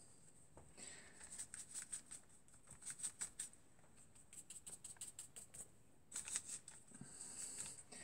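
Faint, quick scratchy strokes of a dry paintbrush flicked against paper, coming in runs of several strokes a second with short pauses, as texture is brushed into painted grass.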